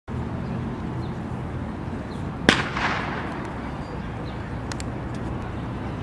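A starter's pistol fires once, about two and a half seconds in, a sharp crack with a short echo, starting the race. Steady background noise runs under it.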